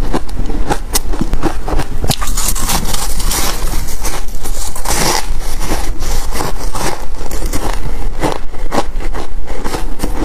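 Close-miked chewing of purple refrozen ice chunks: a continuous, dense crunching made of many sharp, irregular cracks as the ice breaks between the teeth.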